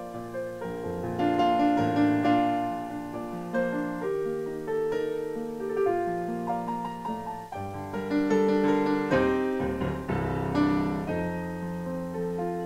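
Solo piano music: chords held under a melody line, with a deep bass note about ten seconds in.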